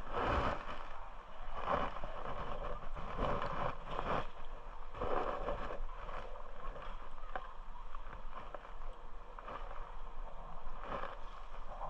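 Water washing and splashing against rocks in irregular surges about every second or so.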